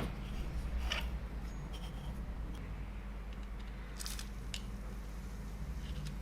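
Workshop handling noise: a few light clicks and taps over a low steady hum, with a small cluster of clicks about four seconds in.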